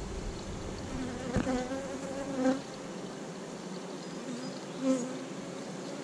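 Honeybees buzzing around an open hive, with single bees passing close by so that the buzz swells louder from about a second and a half to two and a half seconds in and again near five seconds.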